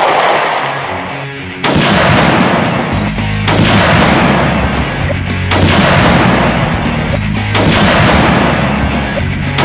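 Gunshots about every two seconds, six in all, each with a long echoing tail, over background music.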